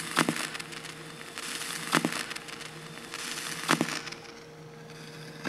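A Crosley Collegiate turntable's stylus (Audio-Technica AT3600 magnetic cartridge) riding in a record's inner lead-out groove, heard through the player's own speakers. There is a click about every second and three-quarters, once per turn of the record, over swishing surface noise and a low steady hum. The auto-stop has been disabled, so the record keeps turning in the end groove.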